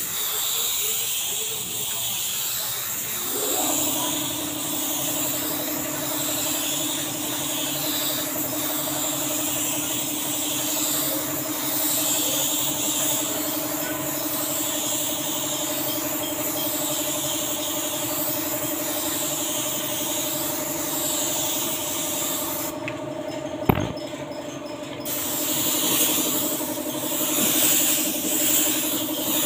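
Gravity-feed spray gun hissing steadily as clear coat is sprayed onto a car body. A steady motor hum, typical of an air compressor, starts with a short rise about three seconds in and runs on. Near the end the spray hiss cuts out for about two seconds, with a sharp click as the trigger is let go.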